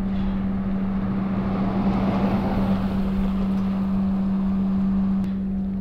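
A steady low engine-like hum under a rushing noise that swells to its loudest about two to three seconds in.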